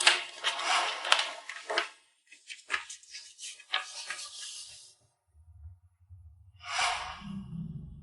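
Paper rustling and crinkling with sharp crackles, as a test result is taken out and unfolded. After about five seconds a low drone sets in, with a short whoosh near the end.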